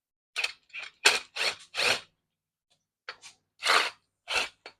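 Hand tools being handled on a workbench: a series of short scraping, rattling bursts, about four in the first two seconds and three more after a pause, as a screwdriver bit is sought for the trimmer's clutch screw.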